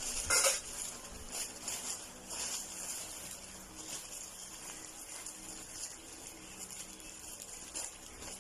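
Packaging being opened by hand: irregular rustling and crinkling, loudest about half a second in and again around two seconds in, then fainter and more scattered.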